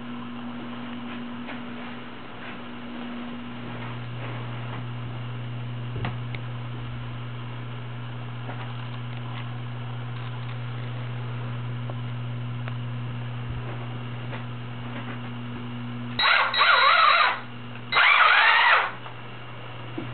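Traxxas Summit RC truck's Titan 775 electric motor and drivetrain whirring in two short bursts of about a second each near the end, over a steady low hum.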